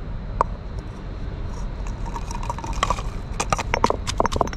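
Stone pestle pounding garlic cloves in a stone mortar: quick regular knocks, about four a second, starting about three and a half seconds in.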